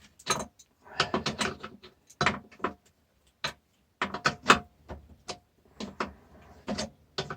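Irregular clicks and clunks of hand tools and loose metal parts while a bolt is being taken out of a food mixer's housing.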